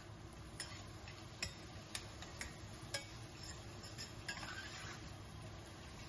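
Metal ladle lightly tapping and scraping the inside of a stainless steel saucepan while onions are stirred in oil: a series of faint, irregularly spaced clicks.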